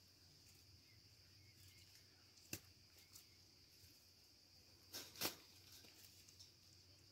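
Near silence under a faint, steady high-pitched insect drone, with a sharp click about two and a half seconds in and two more clicks close together around five seconds in.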